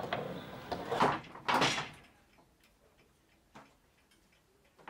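Wooden shop shutter boards being handled: knocks, then a louder knock about a second in and a short wooden slide or scrape just after. The rest is quiet apart from a few faint ticks.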